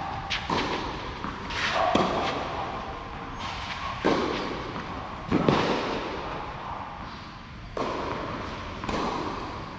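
Tennis rally on a clay court: rackets striking the ball and the ball bouncing, heard as a string of sharp knocks about one to two seconds apart.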